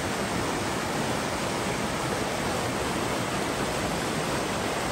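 Shallow rocky creek rushing and splashing over stones in white-water riffles: a steady, unbroken rush of water.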